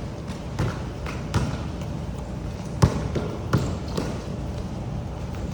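Irregular dull thuds, one every half second to a second, over a steady hiss.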